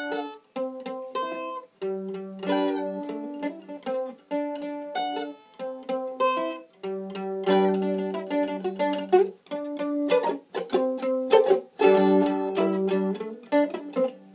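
A mandolin being picked: a slow tune of single notes and paired notes, played in short phrases with brief pauses between them.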